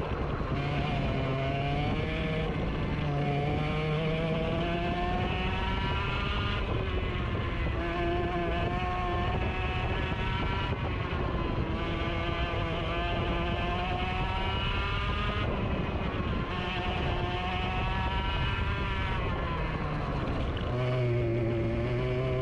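Single-cylinder racing go-kart engine heard onboard, its pitch climbing as the kart accelerates and falling away when the driver lifts, again and again. The sound changes abruptly a few times where the footage is cut.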